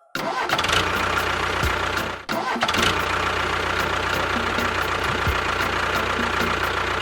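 An engine starts abruptly and runs steadily, with a brief drop about two seconds in.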